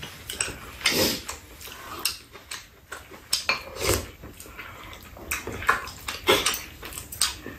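Two people eating: close chewing and mouth sounds, with spoons and chopsticks clicking irregularly against bowls.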